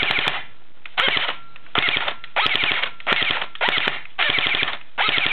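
Jing Gong G3 SG1 airsoft electric rifle (AEG) dry-firing on full auto with no BBs: the gearbox cycles in fast, evenly spaced clicks. There are seven short trigger bursts of under a second each, then a longer continuous burst begins near the end.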